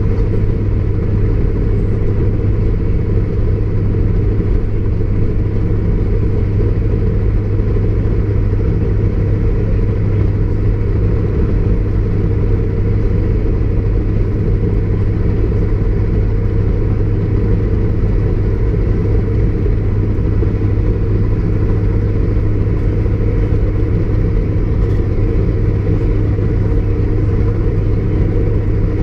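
Class 153 diesel railcar running at a steady speed: a steady drone from its underfloor Cummins diesel engine with the rumble of wheels on rail. There is a constant low hum, with no rail-joint clicks and no change in pace.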